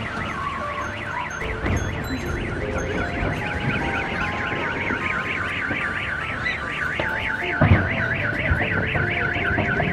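A car alarm sounding a fast, even rising-and-falling warble, with a low thump about three-quarters of the way through.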